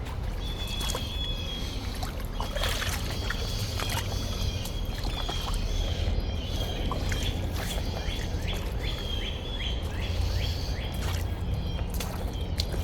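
Water sloshing and splashing from wading through a shallow river, with scattered sharp knocks from a woodpecker pecking overhead. A bird calls over it in a repeated high chirping that quickens in the second half.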